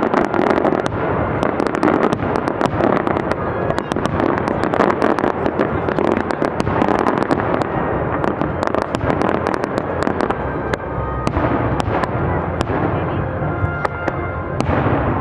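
Fireworks display going off: a dense, unbroken run of sharp crackles and bangs.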